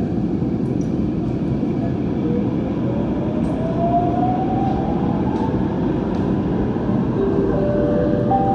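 Bombardier Movia C951 Downtown Line metro train running through a tunnel, heard from inside the car: a steady low rumble of wheels on track. A whine rises in pitch over about three seconds as the train gathers speed, and a couple of steady tones come in near the end.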